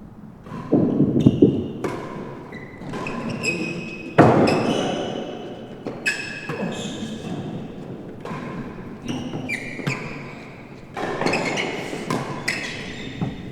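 Real tennis rally: the hard ball struck by racquets and bouncing off the court's floor and walls, a string of sharp knocks with a ringing echo in the enclosed court. The loudest knocks come about a second in and again just after four seconds.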